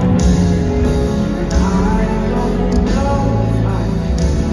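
Live pop song played over an arena PA: a female singer's amplified voice over sustained instrumental backing, heard with the hall's reverberation from the audience.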